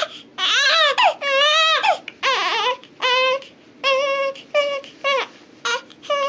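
Newborn baby crying in a run of about eight short wails with quick breaths between, each wail bending up and down in pitch.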